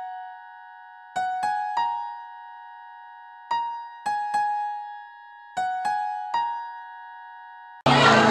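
An electric-piano intro jingle: three-note figures, played four times, that alternately fall and rise, each note ringing and dying away. Near the end it cuts abruptly to the loud sound of a live concert hall, crowd and band together.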